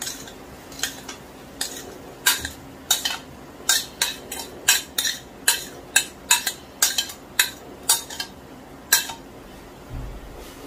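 Metal spoon tapping and scraping against a plate, knocking mashed boiled potato off into a wok: a string of sharp clicks, two or three a second, that stops about a second before the end.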